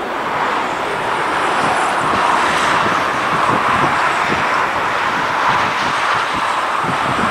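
Steady jet engine noise from the Airbus A320neo's Pratt & Whitney PW1100G geared turbofans as the airliner rolls along the runway, swelling slightly after the first second. Wind buffets the microphone throughout.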